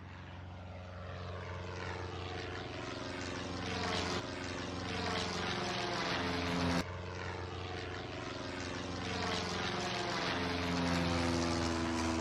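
Propeller airplane engine running and slowly growing louder, as on a take-off run after clearance. A sudden jump in the sound about seven seconds in marks a splice.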